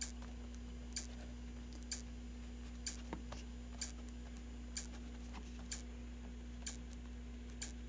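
Williams Whirlwind pinball machine in switch test, giving a sharp tick about once a second over a steady low hum. It keeps re-registering a drop-target switch that stays closed, and will repeat like this until the switch opens.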